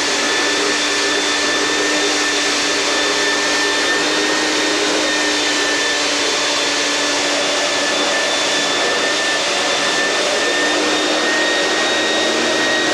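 Vacuum cleaner, likely a shop vac, running steadily: a rushing air noise with a steady high whine over it.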